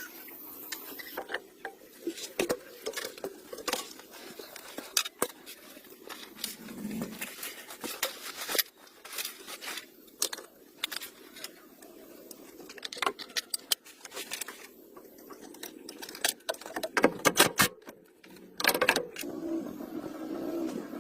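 Irregular metallic clinks and knocks of hand tools and parts being handled, with a quick run of louder clatter near the end.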